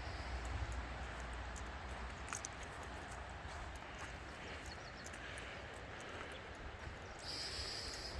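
Footsteps on a dry forest floor: irregular light crunches and small snaps over a quiet outdoor background.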